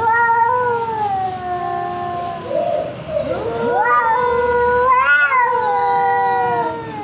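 Two cats caterwauling at each other, as in a fight standoff: long, drawn-out, wavering yowls that overlap. One call rises in pitch about four seconds in, and there is a short warble about five seconds in.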